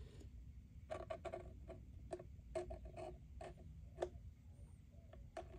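Faint, irregular small clicks and ticks as glue is squeezed from a syringe into a crack in the wooden top of a semi-hollow bass, over a low steady hum.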